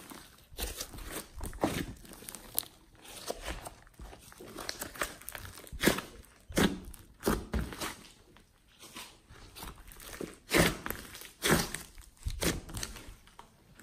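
Hands squeezing, stretching and kneading a large mass of soft clay-and-glitter slime: irregular wet squishes and crackles, with sharp pops as air pockets in the slime burst.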